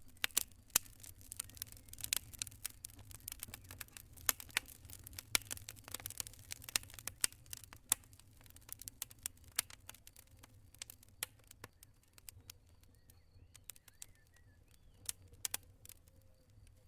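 Wood campfire crackling and popping: irregular sharp snaps, thick in the first half and thinning out later, over a steady low rumble.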